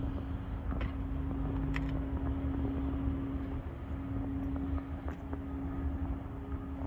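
Vehicle engine idling steadily: a constant hum over a low rumble, with a few light clicks.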